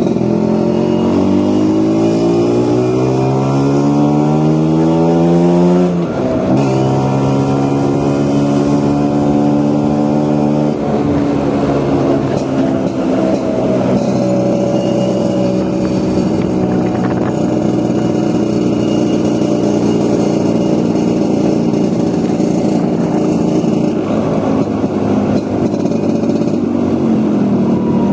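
Vespa scooter engine pulling under way, its pitch climbing steadily for about six seconds, then dropping sharply and holding steady. It drops again around eleven seconds and then settles into a steady cruise, over road and wind noise.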